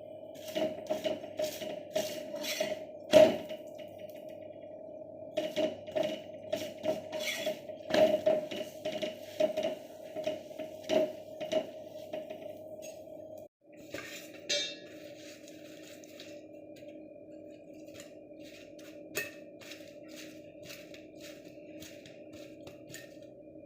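Kitchen utensils knocking and clinking in quick, irregular strokes for about thirteen seconds over a steady hum. After a brief break, only a few scattered clicks remain over the hum.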